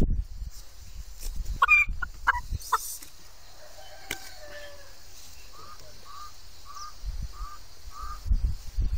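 Hen giving several sharp squawks about two seconds in, then five short, evenly spaced clucks near the end, as she is held upside down and her vent is handled. Low rumbling thumps at the start and near the end.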